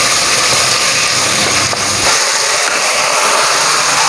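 Chicken pieces sizzling steadily as they stir-fry in a nonstick wok, cooking in the fat they release with no oil added, while a wooden spatula turns them.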